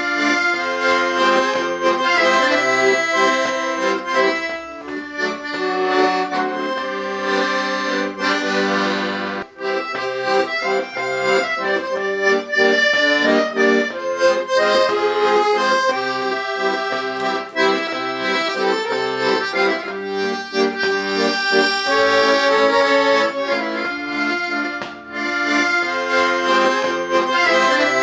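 Accordion playing a tune, the reeds sounding a melody over chords, with a brief break between phrases about a third of the way in and another near the end.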